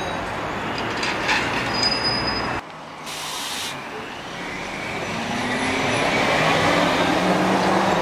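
Trolleybus running with a steady noisy rumble that cuts off abruptly about two and a half seconds in. Then the electric traction motor's whine rises in steps as it accelerates.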